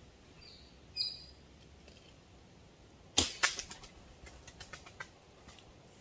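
A slingshot shot: one sharp snap about three seconds in, followed by a run of quick clicks and flutters that fade out over the next two seconds. A few short high chirps sound in the first second.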